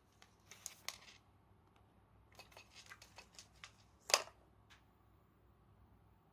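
Kashakasha Bunbun cat toy rustling and clicking as a cat plays with it: short crinkly rustles in scattered clusters, the loudest about four seconds in.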